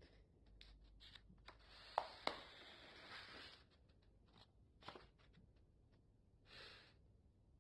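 Paper rustling and sliding, with a few sharp taps, most of it between about two and three and a half seconds in, then scattered clicks and a short rustle near the end.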